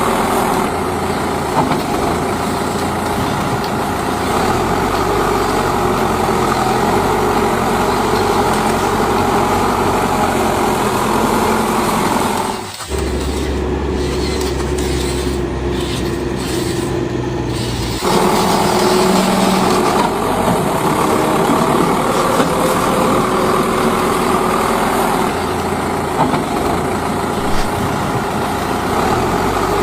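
Radio-controlled toy dump trucks running, their small motors and gears making a steady mechanical drone. About 13 s in the sound changes abruptly to a deeper, duller hum for about five seconds before the higher running sound returns.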